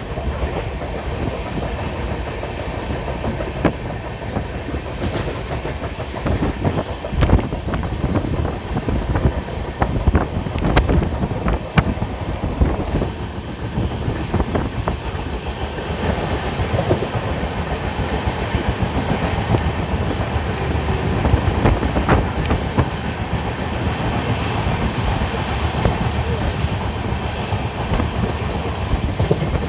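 Moving passenger train running along the track: a steady rumble with irregular clicks and knocks of the wheels over the rails.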